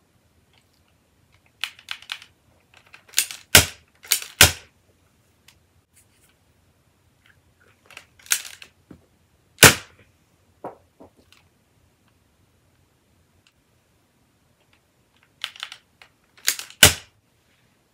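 Plastic clicks and clacks of a Nerf Rebelle Messenger toy pistol being reloaded and worked by hand. They come in short clusters, with four sharp, loud snaps standing out among the lighter clicks.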